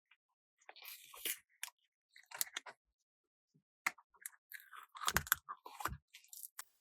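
Hands handling small plastic toys and packaging: irregular crackles, clicks and taps, with two soft thumps about five and six seconds in.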